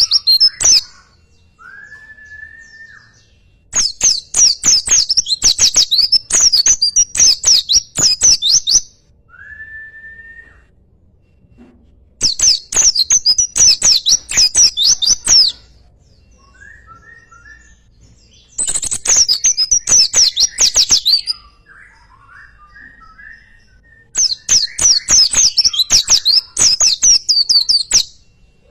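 A songbird singing loud bouts of rapid high notes, each about three to five seconds long, separated by pauses of several seconds. In the gaps, a lower short whistle that rises and then holds is heard twice, along with a few soft chirps.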